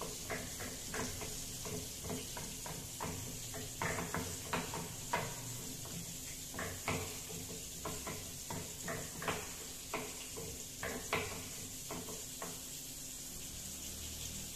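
Pestle grinding chilli sambal terasi in a mortar, knocking and scraping against the bowl in an irregular rhythm of about two strokes a second, over a steady hiss. The strokes stop near the end.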